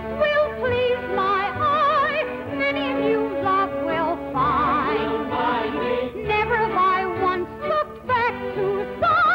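Female singing of a Broadway show tune, with wide vibrato, over a pit orchestra, in the narrow, dated sound of a 1955 television recording.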